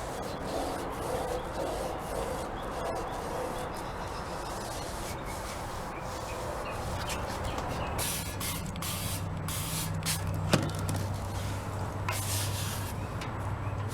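Hissing and rubbing of greasy aluminum box-fan blades being cleaned. A steady low hum joins about eight seconds in, and there is one sharp knock a little after ten seconds.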